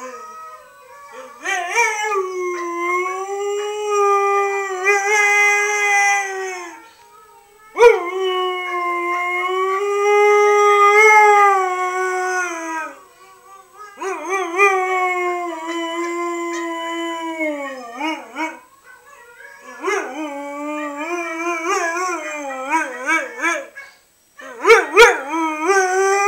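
Siberian Husky howling: about five long, drawn-out howls with short pauses between them. The later howls waver quickly up and down in pitch. A sharp knock comes just before the second howl.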